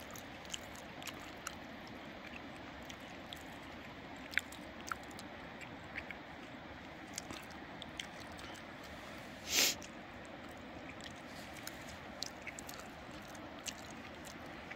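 Sliced sausage frying in a pan on a portable butane camp stove: a faint, steady sizzle with scattered small pops and crackles. One short, louder rush of noise comes about nine and a half seconds in.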